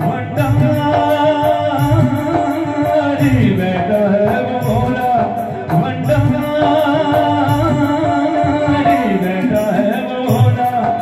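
Live Hindi devotional bhajan for Bhole Baba (Shiva) played through a PA: a male singer over keyboard and hand drums, with a steady beat of drum hits and high percussion strikes.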